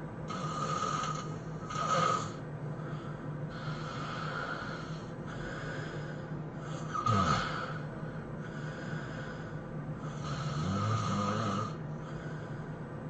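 A person snoring heavily in sleep: a run of loud, raspy breaths one after another, the loudest about two and seven seconds in, the second dropping in pitch.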